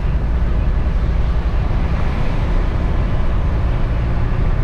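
Steady engine and road rumble inside the cab of a diesel freight vehicle on the move, the low rumble loudest.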